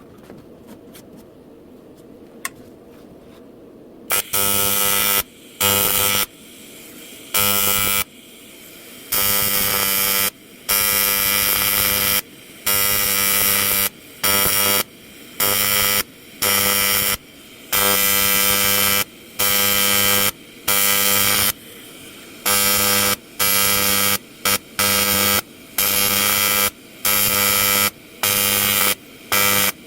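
Electric welding arc on an aluminium truck fuel tank, buzzing in short bursts as a patch plate is welded over a hole. It starts about four seconds in, then switches on and off repeatedly, each run lasting one to two seconds.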